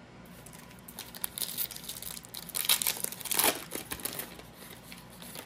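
Shiny foil wrapper of a Donruss basketball card pack crinkling and tearing as it is pulled open by hand, loudest about three seconds in.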